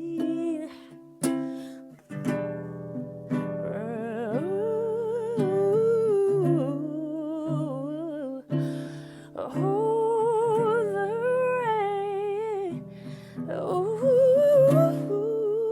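Wordless vocal humming of a slow melody with vibrato, over a plucked string instrument's chords.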